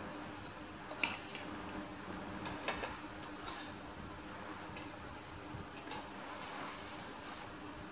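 Metal fork and spoon clinking and scraping against a ceramic soup bowl while eating noodle soup: a few light clinks, the sharpest about a second in, with softer sounds between.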